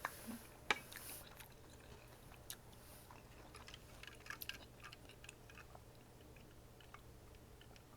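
A person chewing food close to the microphone: faint, scattered wet clicks and smacks of the mouth, with a sharper click just under a second in.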